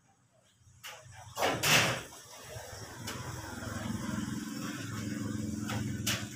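A short, loud knock and scrape about a second and a half in, from a gypsum ceiling board being handled against the light-steel ceiling frame. Then a motorcycle engine running steadily and slowly getting louder, with a sharp click near the end.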